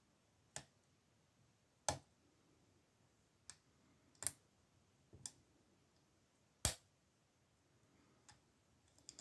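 Sharp metal clicks of a pick and tensioner working inside an old Burg lever padlock, about eight separate clicks at irregular gaps of roughly a second as the levers are worked.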